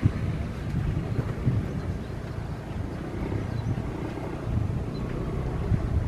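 Low rumble of a distant jet airliner's engines as it rolls along the runway, mixed with wind gusting on the microphone.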